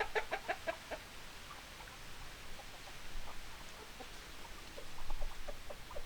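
Hens clucking: a quick run of about half a dozen clucks in the first second, then fainter, scattered clucks.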